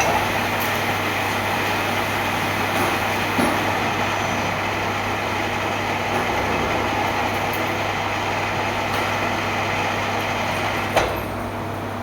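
A machine running with a steady hum, with a few brief clicks.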